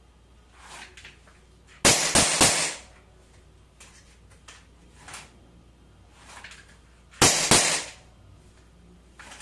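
KWC PT 24/7 CO2 pistol firing 4.5 mm steel BBs in quick semi-auto strings: three or four sharp shots about two seconds in, two or three more about seven seconds in, with faint clicks between.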